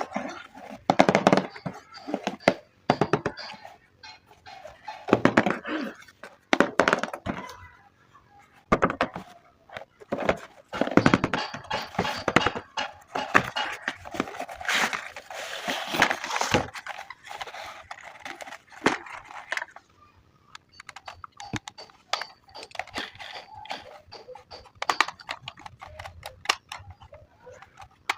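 Irregular knocks, clicks and crinkly rustling, as of things being handled, busiest about a third of the way in.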